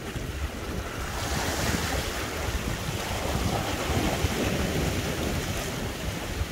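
Sea waves washing against shoreline rocks, a rushing hiss that swells about a second in, with wind buffeting the microphone.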